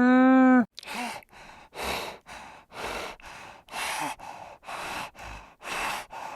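A pitched, harmonic call ends in the first moment. Then comes heavy rhythmic breathing: a strong puff of breath about once a second, with softer breaths between.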